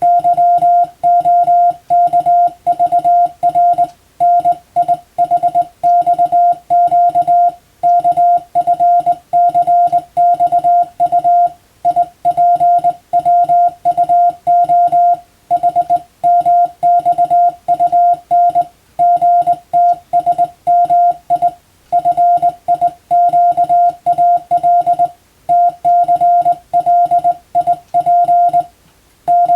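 Morse code (CW) tone of about 700 Hz keyed on and off in dots and dashes, with brief pauses between words every three to four seconds: telegram-text sending practice for a radiotelegraph operator's receiving drill.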